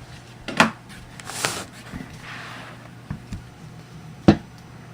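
Small objects being handled and set down on a surface: a light tap about half a second in, a brief rustling swish, and a sharper knock near the end.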